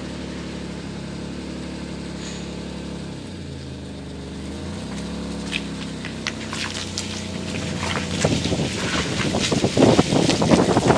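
A car's engine running low and steady as it rolls slowly along a waterlogged lane. From about halfway, the tyres start crackling and splashing over the wet, gritty surface, getting louder toward the end.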